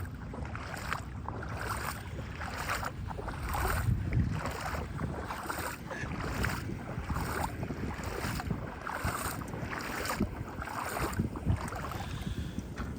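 Footsteps wading through shallow floodwater, about two splashing steps a second, with wind rumbling on the microphone.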